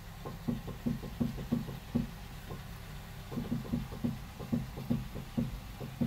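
Front suspension of a 2009 Chevy Cobalt knocking as the steering wheel is turned, rapid knocks about four a second with a short lull about halfway, over a steady low hum. The owner traces the knocking to aftermarket stabilizer bar links without grease fittings and worn strut bearings.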